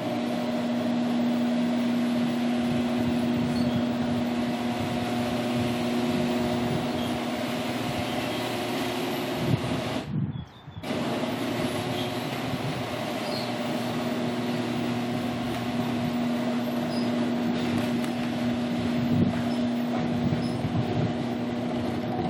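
Old, creaky garage door run by its electric opener: a steady motor hum under rattling and creaking from the door. It stops briefly about ten seconds in, as at the end of its travel, then runs again. The noise is the sign of a worn-out door due for replacement.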